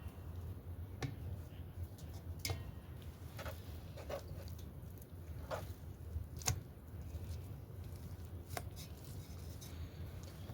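Irregular light knocks and clicks of hand food preparation, about one every second or so, over a steady low hum.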